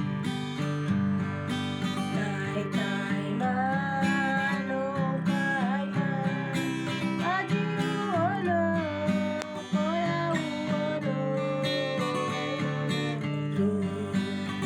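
Music: a strummed acoustic guitar plays steady chords. From about four seconds in, a voice sings a wavering, sliding melody over it.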